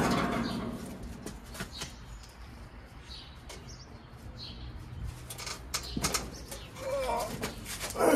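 Craftsman lawn tractor being heaved over onto its side: scattered knocks and rattles from the machine, with a louder clunk near the end as it tips over.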